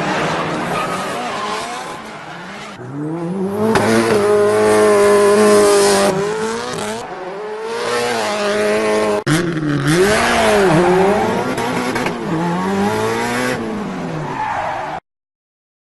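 Race car engine sound effects: an engine revving with pitch sweeping up and down several times, mixed with tyre screeching. The sound cuts off abruptly near the end.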